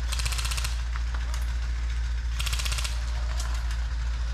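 Airsoft guns firing two short full-auto bursts, about half a second each and two seconds apart, with a few scattered single shots in between, over a steady low rumble.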